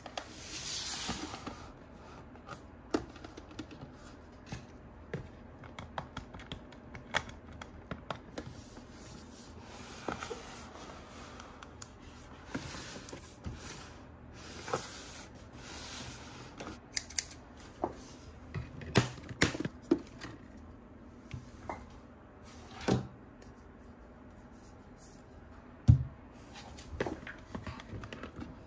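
Hands unpacking boxed toys: cardboard and plastic packaging scraping, clicking and tapping, with scissors snipping. There is a longer rushing scrape right at the start and several sharper knocks toward the end.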